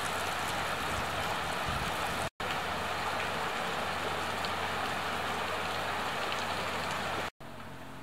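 Steady rushing of a shallow mountain stream flowing over rocks. It cuts out abruptly twice, and after the second gap near the end it is quieter and thinner.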